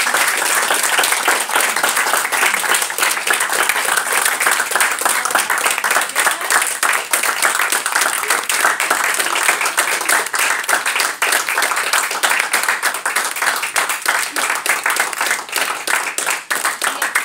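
Audience applauding: many hands clapping in a dense, continuous patter that thins out slightly near the end.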